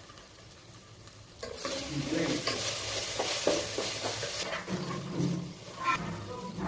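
Maggi noodles frying in a hot pan, sizzling loudly while being stirred, starting about a second and a half in and easing off near the end.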